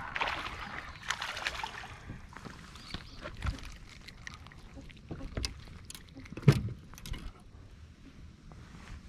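A crappie being landed and handled on a small boat: splashing in the first two seconds, then scattered knocks and thumps as the fish comes aboard and is handled, the loudest about six and a half seconds in.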